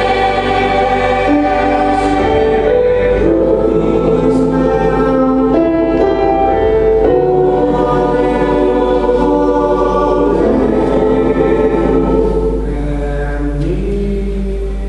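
Choir singing in harmony, holding long chords that shift from one to the next, over a keyboard accompaniment.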